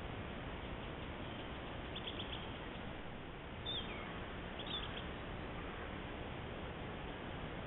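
Faint bird calls over a steady hiss from a trail camera's microphone: a quick run of high chirps about two seconds in, a downward-sliding whistle near the middle, and another short call just after it.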